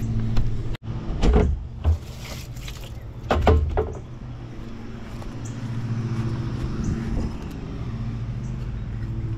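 A few loud knocks and clunks in the first four seconds, then a steady low mechanical hum.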